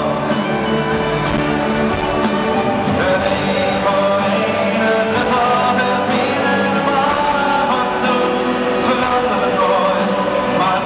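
Live pop band playing over a stadium sound system, guitar and band carrying a passage between the sung lines, with some singing heard.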